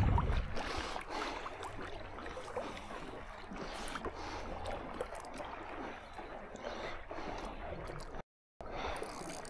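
Faint lapping and gurgling of small wind-driven ripples on shallow lake water around a wading angler.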